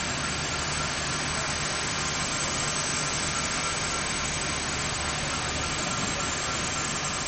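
Steady hum of idling vehicles and street background, even throughout, with a faint steady low tone and a thin higher whine in it.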